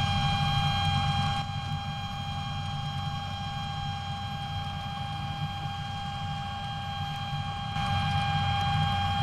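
John Deere 6920 tractor's six-cylinder diesel running steadily under load as it pulls an air seeder sowing wheat: a low engine rumble with a steady high-pitched whine over it. It is louder for the first second and a half and again near the end.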